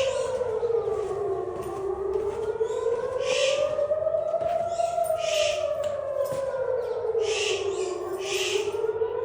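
Air raid siren wailing, its pitch slowly falling and rising about every six seconds. A few short high bird calls sound over it.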